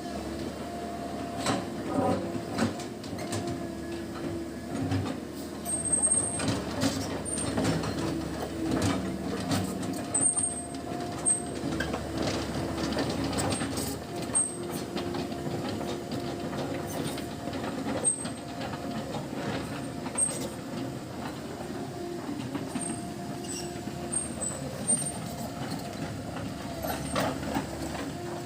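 Komatsu PC138 excavator running and travelling: a steady machine drone, with irregular clanks from the tracks and short high squeaks scattered through.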